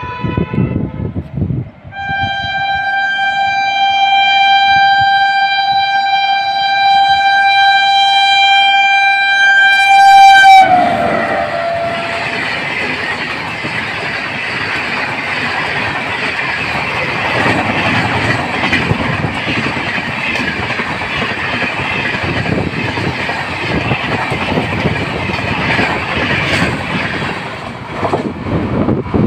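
A WAP-7 electric locomotive hauling an express train gives a short horn note, then a long steady horn blast of about eight seconds that drops in pitch as the locomotive passes. The coaches then rush past at speed with wheels clattering over the rail joints, easing off near the end as the train recedes.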